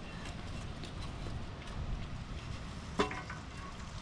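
Pliers squeezing a spring hose clamp and working it onto a rubber fuel-pump hose: faint metal ticks and one sharp click with a short metallic ring about three seconds in, over low wind noise on the microphone.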